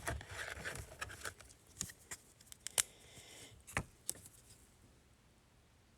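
Football trading cards being handled and flipped through: soft sliding and rustling with a handful of sharp clicks and taps over the first four seconds.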